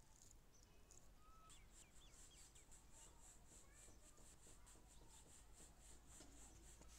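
Near silence: faint outdoor ambience with a few faint bird chirps and a faint high pulsing about four times a second.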